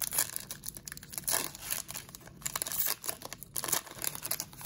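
Crinkly wrapper of a football trading-card hanger pack being torn open and handled, a run of irregular rustles and crackles with several louder crinkles.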